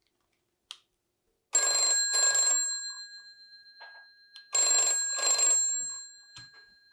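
Electromechanical telephone bell of a red rotary phone ringing in the British double-ring pattern: ring-ring, a pause of about two seconds, ring-ring, with the bell's tone ringing on after each pair.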